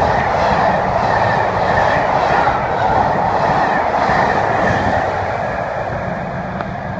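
A rake of passenger coaches running past at speed, wheels and running gear rumbling with a faint regular beat of about two a second. The sound eases off near the end as the tail of the train draws away.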